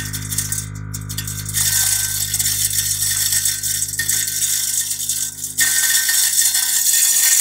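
Electric broadcast spreader's spinner running and flinging fertilizer granules, a dense rattle over a steady hum. The rattling grows louder about one and a half seconds in and drops out briefly before picking up again.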